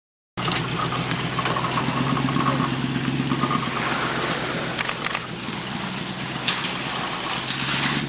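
A 4x4 off-road vehicle's engine running steadily, with crunching, clicks and knocks from the tyres rolling over loose quarry stone. The sound cuts in abruptly just after the start.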